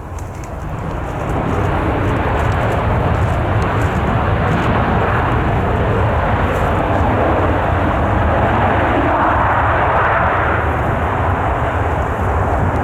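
Jet airliner's engines running at close range: a loud, even noise that builds about a second and a half in and then holds steady, with a deep rumble underneath.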